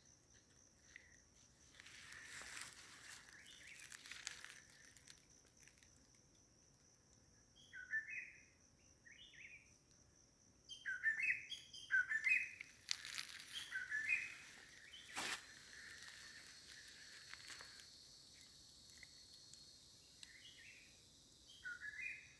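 Faint bird chirps: short calls in scattered groups, most of them around the middle and again near the end. There is light rustling, a single sharp click about fifteen seconds in, and a faint steady high-pitched tone underneath.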